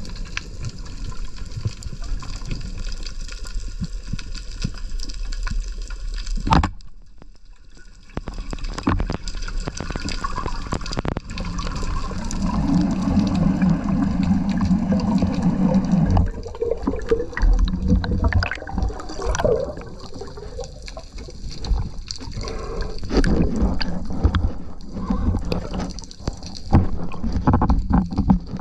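Sea water sloshing and gurgling around a spearfisher's camera in shallow water, with many small splashes and clicks. A sharp knock comes about six and a half seconds in, followed by a quieter second or so.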